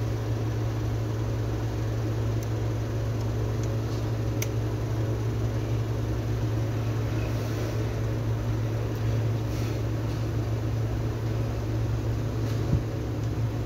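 Hot air gun blowing steadily with a low hum, heating a phone's new charging jack to solder it in. A faint click about four and a half seconds in, and a light knock near the end.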